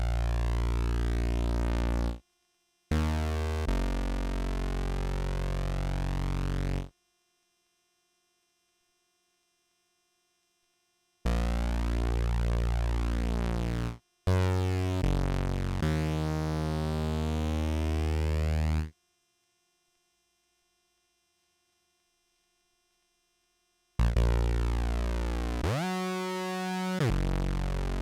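Behringer Phara-O Mini analogue synthesizer, dry with no effects, playing a series of held notes with silent gaps between them. Near the end, a note sweeps up and down in a repeating wobble.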